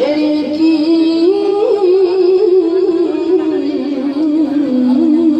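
A young girl's voice in melodic Quran recitation (tilawah), holding one long ornamented phrase without a breath, with quick wavering turns, and stepping down in pitch near the end.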